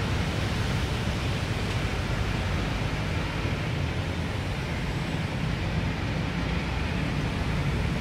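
Steady outdoor background noise: an even rushing hiss over a low rumble, with no distinct events.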